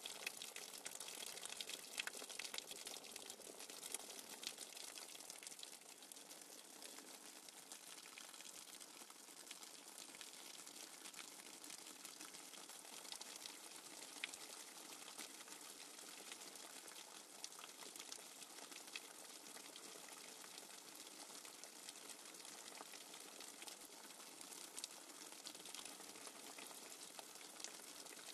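Faint, steady running water with a fine bubbling and crackling texture, from a nature-sounds background track.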